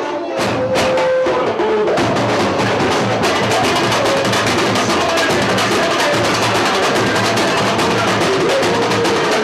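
Samba percussion playing a fast, dense rhythm with a steady low drum beat. For about the first two seconds there are only a few separate strikes, then the full drumming comes in.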